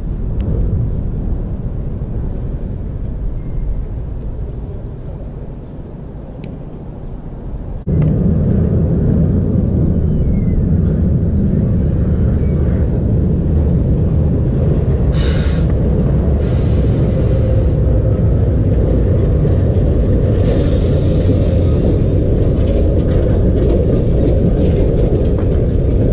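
Low, loud wind rumble buffeting the microphone, jumping up abruptly about eight seconds in, with short spells of hiss in the second half.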